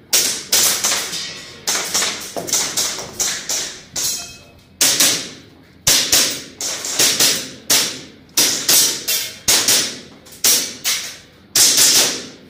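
Airsoft gun fired in a long, uneven string of shots, about two a second and some two dozen in all, each sharp report trailing off briefly, as in an IPSC practice stage.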